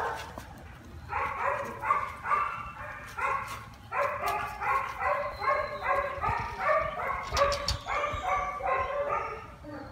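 A dog barking over and over in quick, evenly spaced barks, about three a second, starting about a second in and stopping just before the end.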